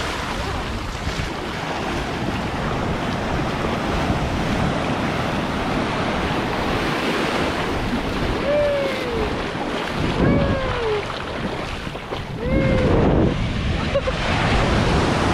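Ocean surf washing in and out at the shoreline, with wind buffeting the microphone. In the second half a few short falling cries sound, one every couple of seconds.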